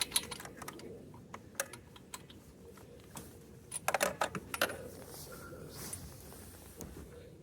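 Small metallic clicks and clinks of a spark plug wrench working a spark plug out of the engine, with a quick cluster of clicks about four seconds in.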